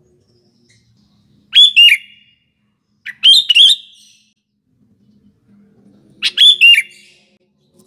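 Sooty-headed bulbul (kutilang) singing: three short, loud phrases of quick gliding whistled notes, spaced a second or two apart.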